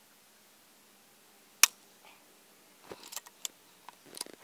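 A single shot from an FX Impact MkII PCP air rifle in .22, a sharp crack about a second and a half in, followed by a run of small metallic clicks and rattles as the rifle's action is worked to load the next slug.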